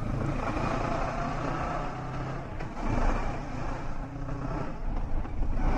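Kawasaki Versys motorcycle engine running under way, with wind and road noise; the engine note grows louder about three seconds in.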